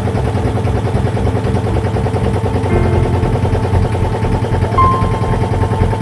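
Fishing boat's inboard engine running steadily while the boat is under way, with a fast even low throb.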